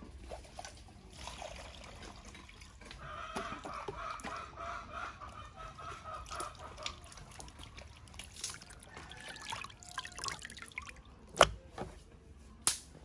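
Water sloshing and dripping as raw pork belly is washed by hand in a plastic basin. Two sharp knocks near the end.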